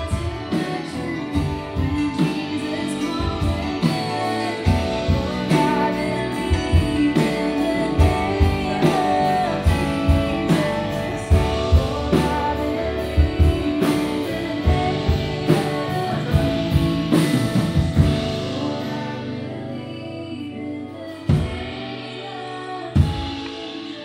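Live worship band playing loud: a woman singing over acoustic and electric guitars, with a drum kit played inside a clear acoustic drum shield enclosure. Near the end the playing thins out, leaving a couple of single drum hits.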